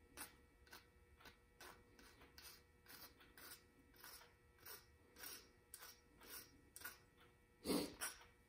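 Small hand file scraping across the freshly cut upper edge of a metal steerer tube in short, faint strokes, about two a second, deburring the hacksaw cut. Near the end comes one louder knock.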